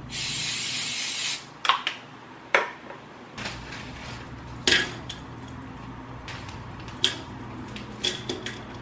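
Aerosol cooking spray hissing into a frying pan for just over a second, followed by scattered sharp clicks and knocks of kitchen items against the pan and stovetop, several in the last second.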